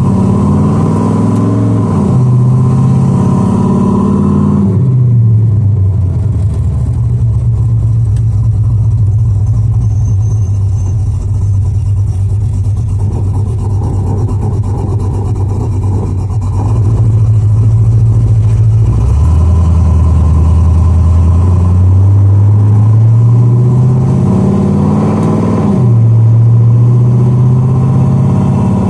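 Car engine pulling the car through its gears under an electronically controlled 4R70W four-speed automatic: the engine note climbs, then drops suddenly as the transmission upshifts, twice near the start and once more near the end, with steady cruising in between.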